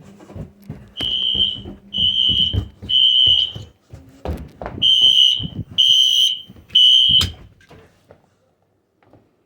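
Wheelock NS fire alarm horn sounding a loud, high, steady-pitched beep in the temporal-three evacuation pattern: three beeps about a second apart, a pause, then three more. It stops suddenly a little past seven seconds in.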